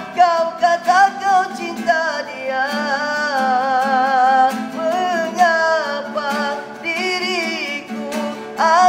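A man singing a slow Malay ballad in a high voice, holding long notes with wide vibrato, over guitar accompaniment.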